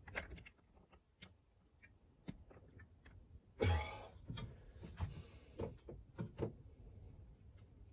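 Scattered light clicks and taps of hands handling the plastic recoil pull-cord starter and its cord, with one louder brief rasp about three and a half seconds in.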